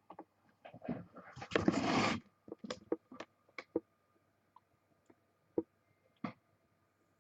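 Handling noises at a desk: a run of sharp clicks and knocks, with one short, loud scraping rustle about one and a half seconds in.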